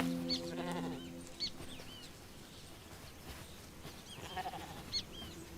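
A sheep bleats, one long steady call that fades out about a second and a half in. Small birds give short high chirps on and off.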